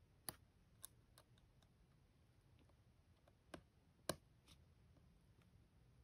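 A few small, sharp clicks of tweezers on the tiny snap-on antenna cable connectors of a MacBook Pro's Wi-Fi card as they are pressed onto their sockets. The loudest click comes about four seconds in.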